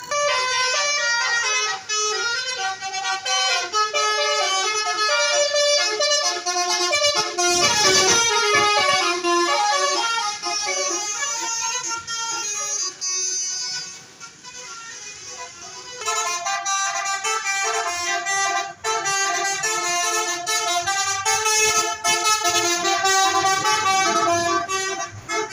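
Tour bus 'basuri' telolet horn, a multi-trumpet air horn playing a tune in quick stepped notes, dropping back briefly a little past halfway before the melody starts again.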